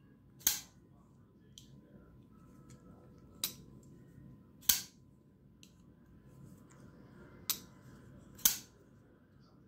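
Damned Designs Djinn XL folding knife flicked open with the thumb three times. Each opening is a sharp snap as the blade swings out and locks, and quieter clicks come between them as the blade is closed again.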